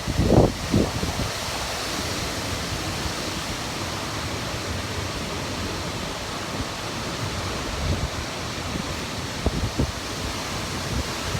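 Typhoon wind rushing steadily during Typhoon Faxai's landfall. Gusts buffet the microphone with low thumps just after the start and again near the end.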